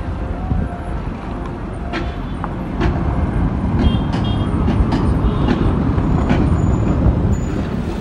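Steady low road and wind noise of a moving vehicle on the microphone, growing louder about three seconds in, with a few light clicks.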